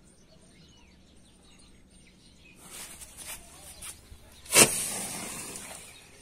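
Standard Fireworks 'Mine of Serpent' ground firework going off: its fuse sputters and hisses from about two and a half seconds in, then one sharp bang, the loudest sound, followed by hissing and crackling that fades as the burning pellets scatter.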